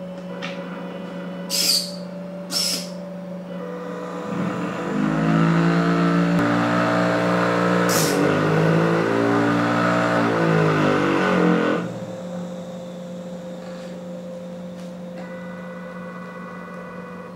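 A small Arduino matchstick-lighting machine running a cycle. Its stepper motors and drivers hum steadily, with two short high buzzes near the start. From about four seconds to twelve seconds the motors whine louder, the pitch rising and falling as they speed up and slow down. A brief scratch comes about eight seconds in, as the match is struck on the sandpaper disc.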